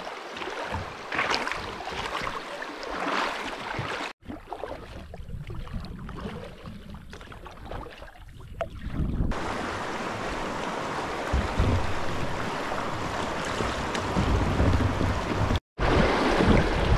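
River water rushing and splashing around a kayak, in short cut-together clips with abrupt breaks about four seconds in and near the end. In the second half a steady, dense rush with wind buffeting the microphone.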